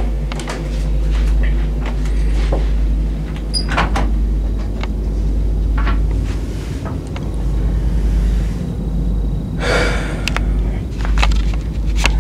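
Handheld camera being jostled and rubbed against a shirt: scattered knocks and clicks, and a scraping swish about ten seconds in, over a steady low hum and rumble.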